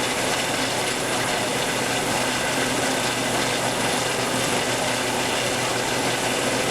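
Steady, loud mechanical noise with a dense rattling texture, unchanging throughout.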